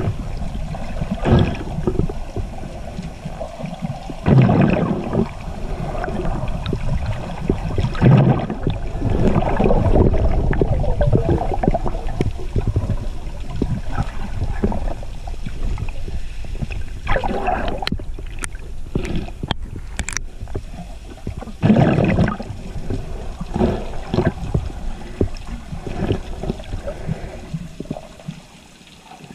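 Muffled underwater water noise heard by a camera held underwater: a constant low rumble with irregular louder surges of sloshing and gurgling, fading toward the end.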